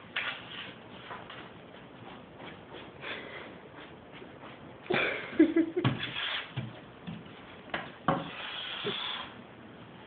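A bull terrier rummaging with his head in styrofoam packing: styrofoam and cardboard scraping and rustling in irregular bursts, with the dog's snorting and sniffing, busiest about halfway through and again near the end.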